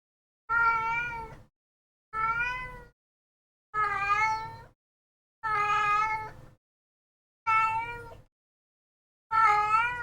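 A cat meowing over and over: six drawn-out meows about one and a half seconds apart, each rising and then falling in pitch.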